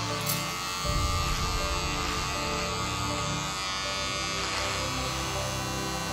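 Electric beard trimmer buzzing steadily as it is held against a goatee and cuts the hair.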